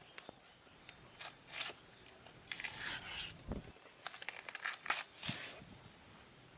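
Banana trunk sheaths being torn and peeled apart by hand: irregular rasping, crackling tearing strokes, thickest about three seconds in and again about five seconds in.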